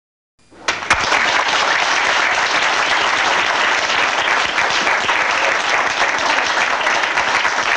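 Audience applause, starting abruptly out of dead silence about half a second in and holding steady.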